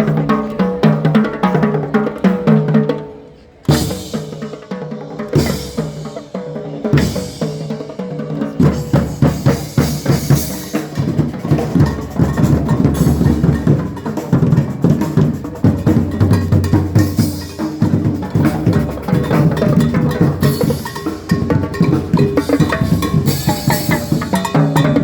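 Live drum performance with backing music. The music drops away about three seconds in, three heavy drum hits follow about a second and a half apart, and then fast, dense drumming continues.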